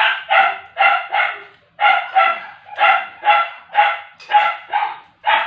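A dog barking repeatedly: about a dozen short barks, often two in quick succession.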